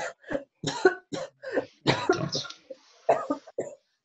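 A woman's coughing fit into a tissue: a rapid, irregular string of about seven or eight coughs, with a denser run in the middle.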